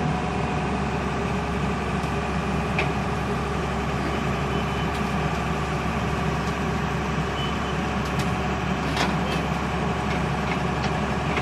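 Heavy excavator's diesel engine running steadily under load, with a few short metallic clanks, one about three seconds in and a couple near the end.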